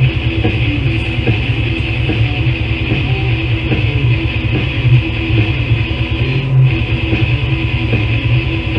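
Old-school death metal played by a full band, electric guitars over bass and drums, from a 1994 cassette demo recording. It runs loud and dense without a break.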